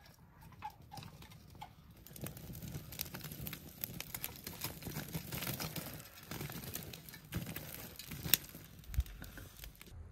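Metal shovel scraping inside a clay tandoor and tipping loose ash and embers into it: a gritty patter of falling material with many small clicks, and one sharper knock of the shovel a little after 8 seconds.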